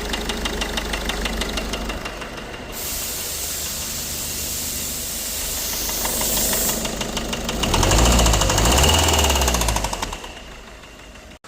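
PSA/Ford 1.6 HDi four-cylinder turbodiesel running with a fast, regular knocking: the strange noise from the engine. A loud hiss joins it from about three to seven seconds in, and the engine grows louder between about eight and ten seconds in before dying down.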